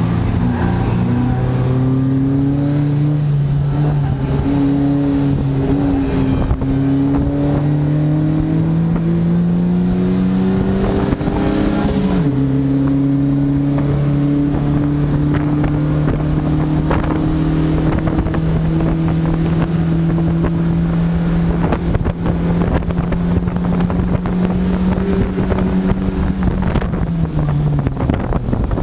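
Race car's engine heard from inside the cabin, pulling hard with the revs climbing slowly, dropping sharply about twelve seconds in, then climbing again before falling off near the end. Small rattles and clicks run through it.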